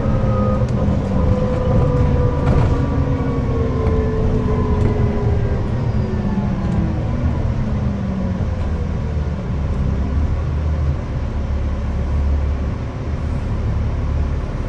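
Double-decker bus engine and Voith automatic gearbox heard from the upper deck: a whine that falls steadily in pitch for the first several seconds as the bus slows to a stop, then a steady low idle rumble.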